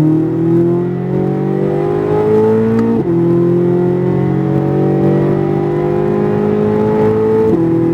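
Corvette Z06's V8 accelerating hard at full throttle: the engine note climbs steadily, drops sharply at an upshift about three seconds in, climbs again and shifts up once more near the end.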